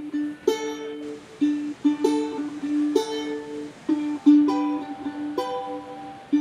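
Background music: a single plucked string instrument picking a repeating melody, notes struck about twice a second.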